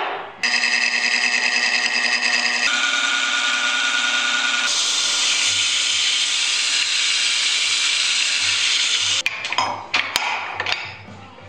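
Wood lathe spinning a segmented wood vase blank while it is sanded by hand inside, a loud steady sanding noise over the lathe's whine. It stops a little after nine seconds in, followed by a few short knocks.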